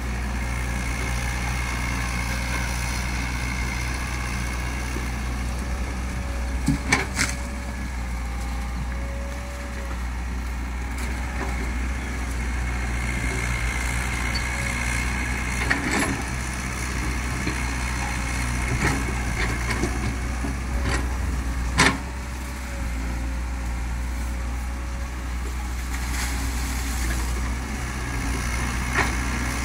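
Komatsu PC130 crawler excavator working: its diesel engine runs steadily, a wavering whine comes and goes twice, and a few sharp metallic clanks sound, the loudest about 22 seconds in.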